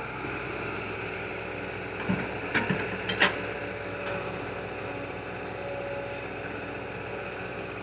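Excavator engine running steadily, with a few short metallic knocks about two to three seconds in, the sharpest just after three seconds.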